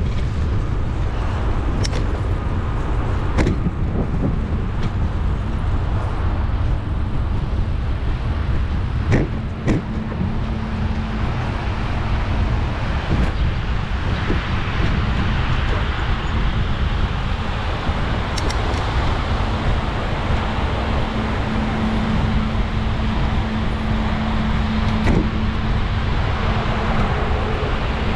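Wind and road noise on the GoPro's microphone while cycling in city traffic, with motor vehicles running close by; a steady engine hum comes in about ten seconds in and again for the last third, and a few short clicks and knocks are scattered through.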